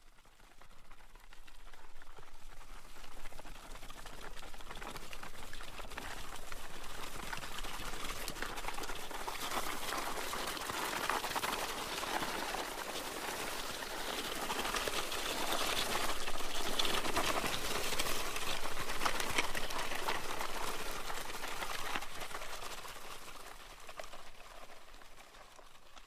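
Gravel being dragged: a continuous dry rattle and crunch of small stones that fades in, is loudest past the middle, and fades away near the end.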